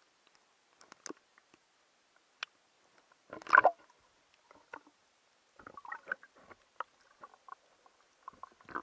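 Water sound picked up by a GoPro held underwater: scattered clicks, knocks and gurgling as water moves against the camera, with a louder burst of sloshing about three and a half seconds in and busier crackling in the second half.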